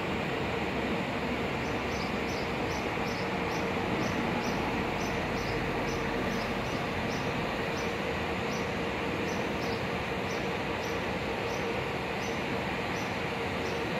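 Metro-North electric commuter train on the adjacent track giving a steady running noise with a constant hum. Faint short high chirps repeat about twice a second over it.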